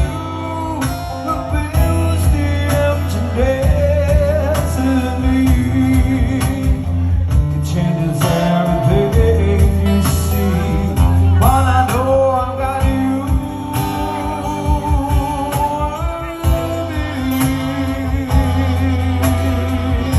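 Live acoustic band music: guitar over a steady bass, with a wavering sung melody line.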